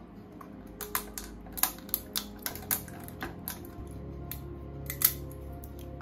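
Irregular sharp plastic snaps and clicks as support material is broken and peeled off a 3D-printed figure by hand, the loudest snaps about one and a half seconds and five seconds in, over background music.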